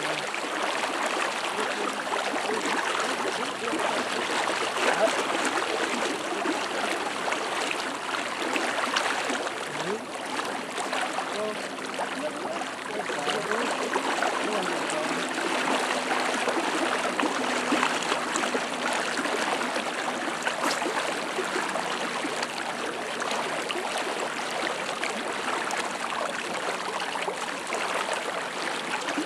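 Steady rushing of fast, high river water, an even wash of noise with no breaks.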